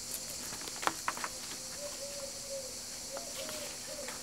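Crinkling and light clicks of a fly net with duct-tape edges being handled, a few sharper clicks about a second in, over a steady high hiss.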